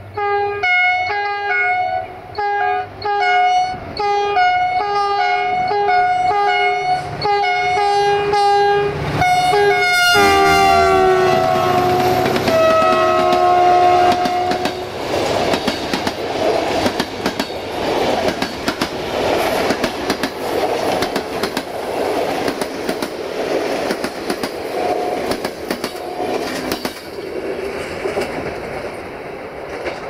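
Air horn of a GM-built class 64 diesel locomotive blown in a rapid run of short blasts, about two a second, then held as the locomotive passes, its pitch dropping about ten seconds in. From about fifteen seconds the passenger coaches rumble past, their wheels clicking over the rail joints.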